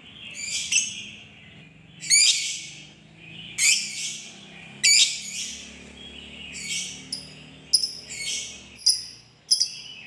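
Lovebird giving a series of shrill, chattering calls about a second apart, the calls coming shorter and faster in the last few seconds.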